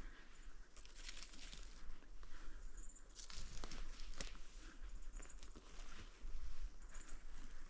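Footsteps crunching and rustling through dry ground cover at an uneven pace, with a few sharp snaps, over a low wind rumble on the microphone.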